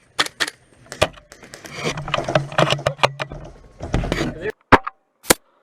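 Sharp clicks and knocks of airsoft guns firing and being handled, several in quick succession at first and two more near the end, with muffled voices in the middle.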